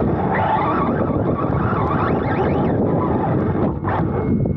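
Onboard sound of a Serpent SRX2 2wd electric RC buggy racing: wind buffeting the microphone over the whine of its brushless motor, rising and falling with the throttle, and the chassis rattling over the turf. The noise dips briefly about four seconds in as the car tips over.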